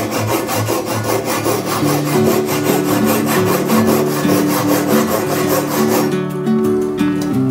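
Hand saw cutting across a thick timber beam held in a vise, in rapid, rhythmic strokes: the cuts along the sides of a housing dado. Background music with plucked notes comes in about two seconds in.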